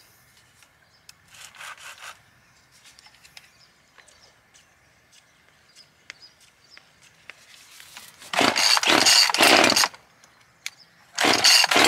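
Small chainsaw: light clicks as it is handled, then the saw runs in several short bursts for about two seconds, stops, and starts running again about a second before the end.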